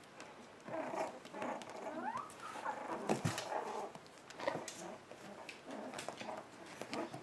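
Month-old puppies whining and squeaking in short rising and falling calls, starting about a second in and recurring throughout. Light scratching and clicking of small paws on the bedding runs underneath.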